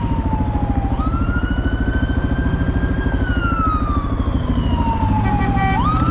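Siren wailing in slow sweeps: it falls, jumps up about a second in, rises, then glides down and jumps up again near the end. Underneath runs the steady pulsing of a motorcycle engine.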